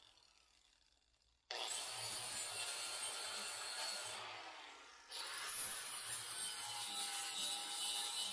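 4½-inch DeWalt angle grinder with a flap disc, sharpening a steel lawn mower blade. It starts suddenly about a second and a half in, winds down, then starts again about five seconds in and grinds steadily against the blade's edge.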